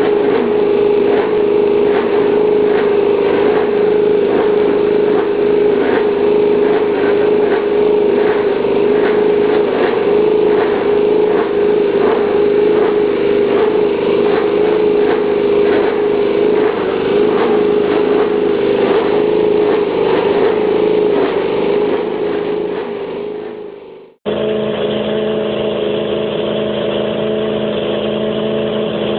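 Yamaha YZR-M1 MotoGP bike's inline-four racing engine running at steady high revs, the note holding nearly constant. About 24 seconds in it cuts off abruptly and another M1 engine recording takes over, running steadily on a lower note.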